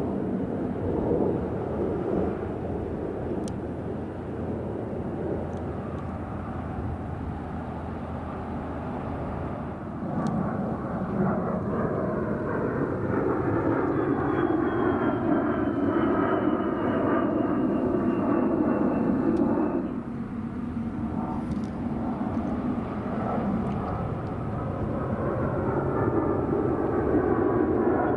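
Military aircraft engine noise as a plane passes over the airfield, a steady rushing drone with a high whine that falls slowly in pitch partway through.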